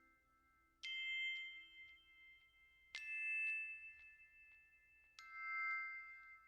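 Three struck, bell-like metallic notes about two seconds apart, each starting sharply and ringing out slowly with several overtones.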